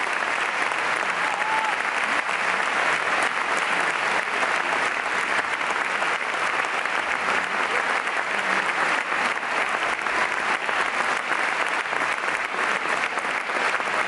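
A large concert audience applauding: dense, steady clapping that holds at an even level throughout.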